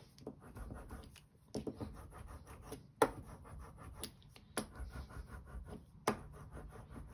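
Small rubber ink roller rolled back and forth over scrap paper, a quiet scratchy rubbing, taking excess ink off the roller; a few sharp taps break in about three, four and a half and six seconds in.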